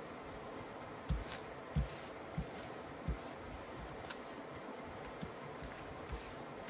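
Tarot cards being handled and laid face down on a cloth-covered table: four soft taps in the first few seconds, then only faint ticks, over a steady low hiss.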